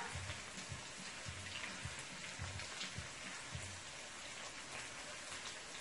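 Butter sauce sizzling softly in a frying pan around sea bass fillets as they are basted with a spoon.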